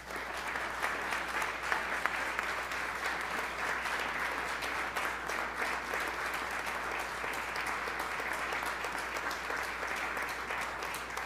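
Audience applauding: many hands clapping in a steady, dense applause.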